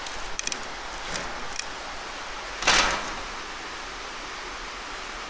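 Steady rush of a mountain stream, with a few light knocks early on and one louder short scrape a little past halfway.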